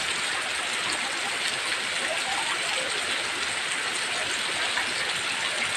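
Heavy rain pouring steadily, a dense, even hiss of water.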